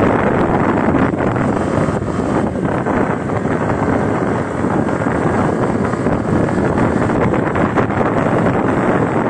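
Steady wind rush on the microphone of a moving motorcycle, with the bike's road and engine noise beneath it.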